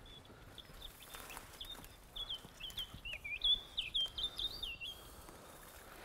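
Recorded songbird song played from an electronic decoy caller hidden in a bush, a lure for trapping songbirds. It is a fast, high, warbling run of chirps that stops about five seconds in.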